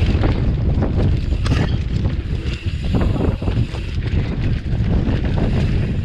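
Wind buffeting the microphone over the steady rumble of mountain-bike tyres rolling down a dirt trail, with rapid rattles and clicks from the bike as it rides over bumps.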